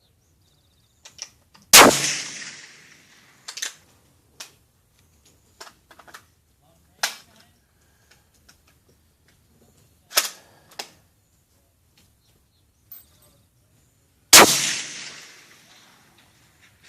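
Two rifle shots from a .308 precision rifle, about twelve and a half seconds apart, each trailing off in a long rolling echo. Several smaller sharp clicks and knocks come between the shots.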